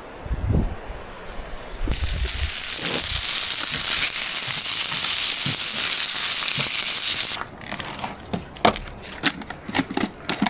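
Burgers frying with a loud, steady sizzle that starts and cuts off suddenly, followed by a run of sharp clicks and taps.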